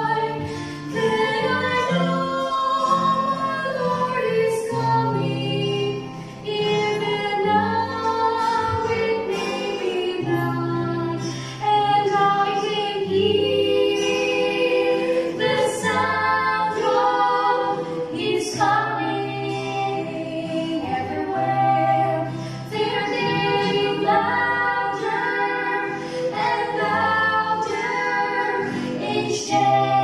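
Two women and a man singing a Christian song together, accompanied by an acoustic guitar.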